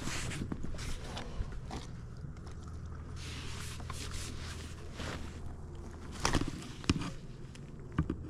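Handling noises on a kayak just after a fish is netted: scattered clicks, knocks, scrapes and rustles, with a sharper knock about six seconds in and again near the end.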